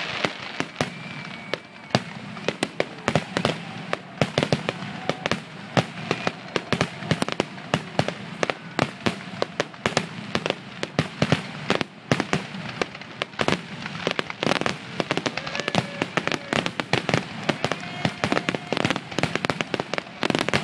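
Fireworks finale: aerial shells bursting in a rapid, near-continuous barrage of sharp bangs, several a second.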